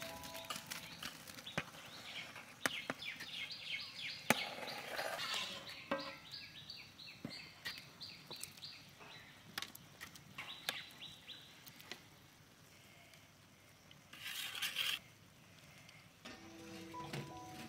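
A metal perforated ladle clinking and scraping against a large aluminium cooking pot as rice is tipped in and spread over shrimp masala, with a brief louder scraping rush late on. Through the first two-thirds a bird chirps repeatedly, several short high notes a second.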